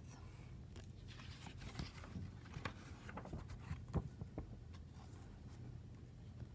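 A picture book being handled and opened, with soft paper rustling and light taps and one sharper knock about four seconds in.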